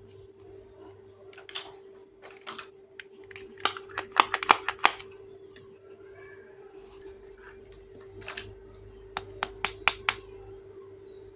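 Small plastic toy kitchen pieces being handled, clicking and tapping against each other in irregular clusters, with a quick run of taps a few seconds in and another near the end. A steady hum runs underneath.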